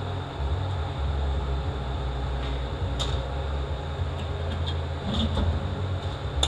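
Steady low mechanical hum of workshop machinery, with a couple of light clicks from transmission parts being handled, one about three seconds in and one at the end.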